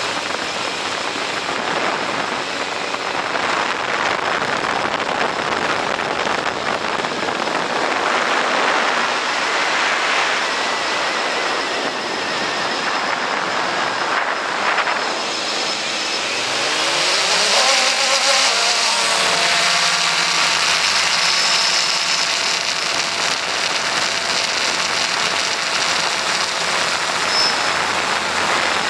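Steady rushing noise of wind and rotor wash on the XK X380 quadcopter's onboard camera microphone. About two-thirds of the way through, the motors' whine rises in pitch and then holds as a steady set of tones.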